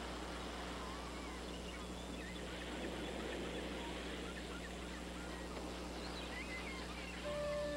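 Beach ambience: a steady wash of surf noise with faint, scattered short bird calls. Music begins near the end.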